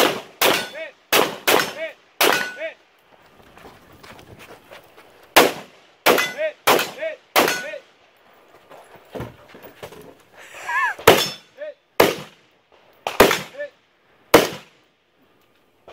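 Carbine rifle shots fired in three quick strings of four or five, with pauses of a few seconds between strings. Each shot is followed by a short metallic ring, typical of hits on steel targets.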